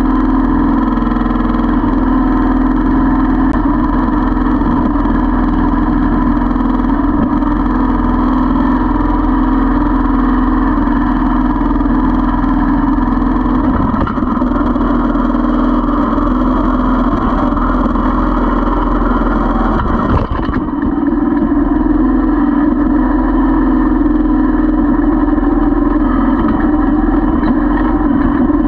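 Kubota L3200 tractor's three-cylinder diesel engine running steadily while the front loader is worked, with a brief dip about twenty seconds in.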